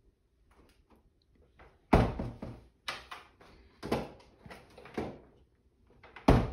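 Five sharp knocks, about a second apart; the loudest come about two seconds in and near the end.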